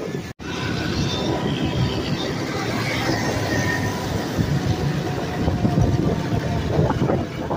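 Steady rumble of engine, tyre and wind noise from riding through city traffic, with no speech. The sound drops out for an instant about half a second in.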